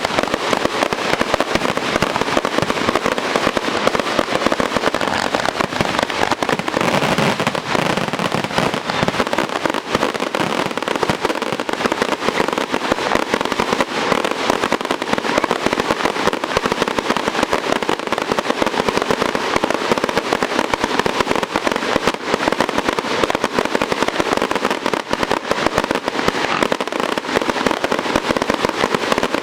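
Fireworks crackling densely and without a break at a steady loud level.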